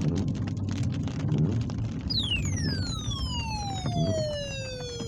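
Thunderstorm noise: a continuous low rumble with rain and faint crackle. About two seconds in, a whistling pitched tone with overtones starts high and slides steeply and steadily down in pitch.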